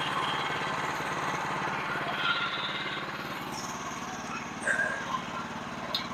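Small gas engine of a portable bandsaw mill running steadily as the saw head is pushed along a board, the blade cutting.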